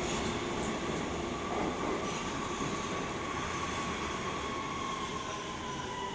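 Metro B Line subway train running through an underground station: a steady rumble with a motor whine that drops slightly in pitch.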